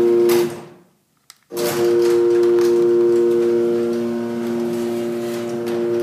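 Sears Craftsman chain-drive garage door opener running as it raises a sectional door, its motor giving a steady hum. It cuts out about half a second in, a click sounds just before it starts again about a second and a half in, and it then runs on steadily.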